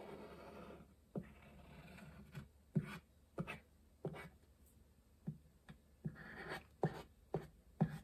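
Liquid glue squeeze bottle worked around the edges of a card panel: a faint scratchy rubbing of the nozzle on the card, then light taps and clicks scattered through.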